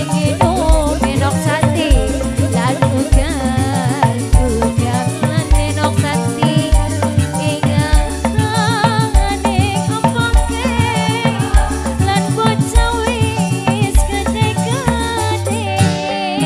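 Loud dangdut music: a deep drum beat, a steady shaking rattle and a woman's wavering sung melody.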